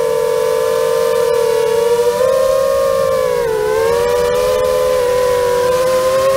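FPV quadcopter's brushless motors and propellers whining in flight: several close tones rise and fall together with the throttle, with a dip in pitch about three and a half seconds in.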